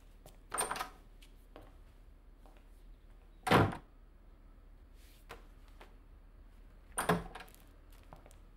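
An office door opening and shutting, heard as three short clunks about half a second, three and a half and seven seconds in, the middle one the loudest.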